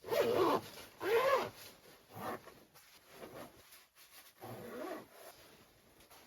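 A canine giving four short whining yelps, each rising and then falling in pitch; the first two are the loudest.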